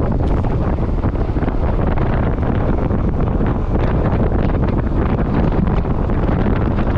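Steady wind rush buffeting the microphone of a moving motorcycle, a dense low rumble with the bike's running noise underneath.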